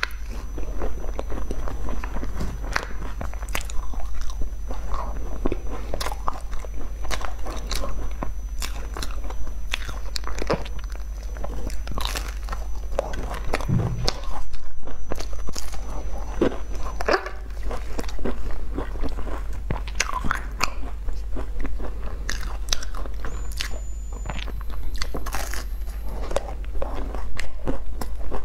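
Close-miked biting, crunching and chewing of flaky sesame-topped pastries, the crisp crust crackling in quick, irregular clicks, over a steady low hum.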